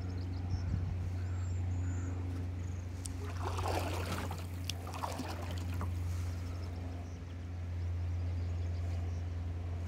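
Water splashing and trickling from a kayak paddle for a few seconds near the middle, with a couple of sharp drips, over a steady low hum.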